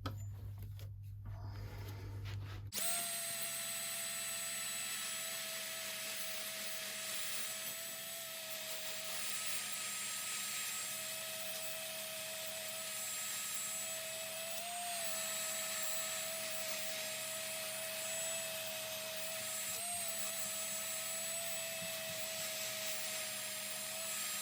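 A low hum for about the first three seconds, then a small electric power tool running steadily with a high whine over a rough hiss, its pitch dipping briefly twice as it is pressed into work.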